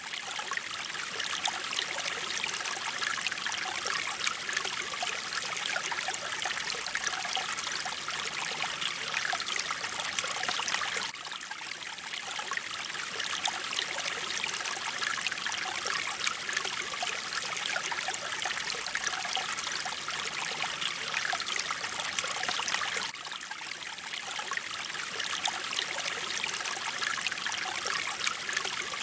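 Mountain water flowing in a steady rush with trickling. The level dips briefly about every twelve seconds.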